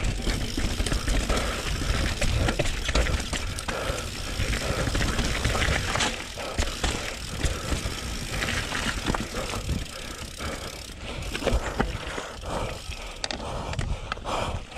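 Mountain bike riding down a rough, slippery dirt trail: the tyres rumble over dirt and roots while the bike clatters and rattles with many small knocks over the bumps.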